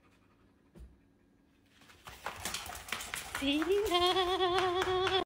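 A drawn-out vocal cry that rises in pitch and then holds as a long wobbling note, over a rapid clatter of clicks. Before it the sound is near quiet apart from one soft thump.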